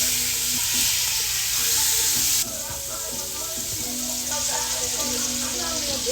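Steak searing in a hot pan, its fat sizzling as the edges brown. The sizzle is loud for about the first two and a half seconds, then drops suddenly to a quieter sizzle.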